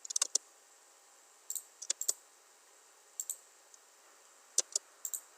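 Computer mouse clicking in short clusters of two to four sharp clicks, about five times, over a faint steady hiss.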